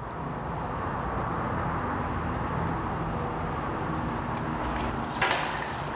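A steady machine-like hum and hiss holding at an even level, with a short sharp rustle or click about five seconds in.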